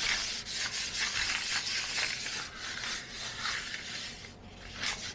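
Rubbing, scraping strokes as a floor is cleaned by hand, in a quick irregular run of short hissy sweeps.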